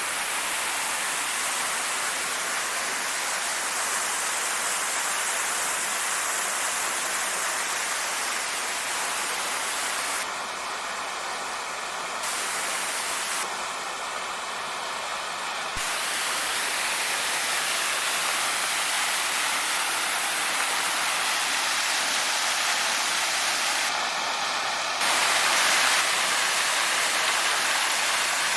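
Steady rushing of a waterfall, its loudness shifting slightly a few times.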